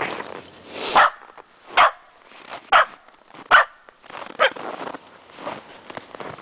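A dog barking five times, short sharp single barks spaced about a second apart.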